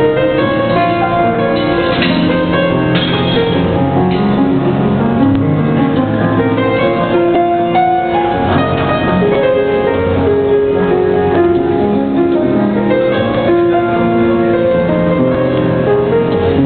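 Piano being played: a melody of held notes over chords, running on without a break.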